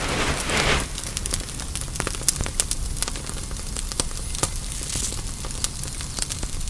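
Irregular crackling: many small sharp clicks, like popping or sizzling, over a steady hiss, with a brief swish about half a second in.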